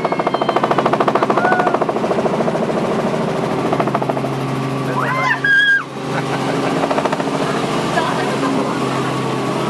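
Helicopter in flight: fast rhythmic rotor beating over the engine's steady hum, the beating strongest in the first few seconds and then settling into a more even hum. A short high sliding tone comes about halfway through.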